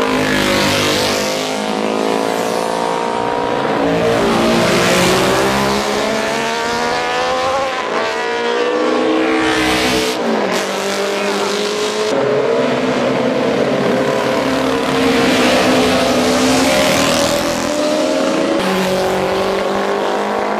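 Vintage racing motorcycles passing at speed one after another, engines revving hard and shifting gear. The engine note climbs under acceleration and drops sharply as each bike goes by, the sharpest drop about halfway through.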